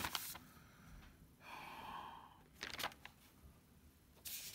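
Paper pages of a spiral-bound log book rustling and being turned by hand, in a few short strokes. A soft sigh-like breath comes between them.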